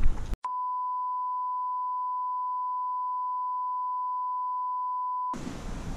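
A steady electronic beep at one high pitch, held for about five seconds, then cut off suddenly and replaced by outdoor background noise.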